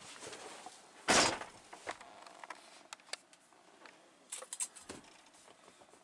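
Handling noises: a dull thump about a second in, then scattered light clicks and a short clattering rattle with a knock a little after four seconds.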